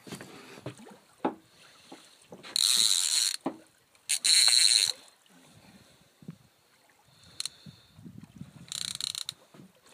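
Fishing reel ratcheting in three buzzing bursts while a hooked tope is played at the surface: two of about a second near the middle, the second the loudest, and a shorter, quieter one near the end.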